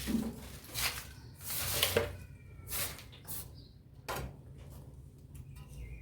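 Objects being handled and moved about in a laundry area: a series of knocks and scrapes, with a short squeak about two seconds in.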